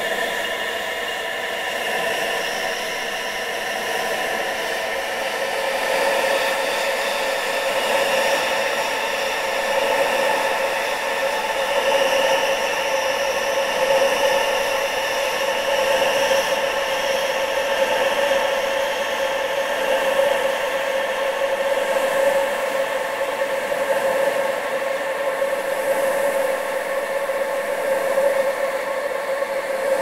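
Steady rushing wind with several faint whistling tones held inside it, getting a little louder about six seconds in.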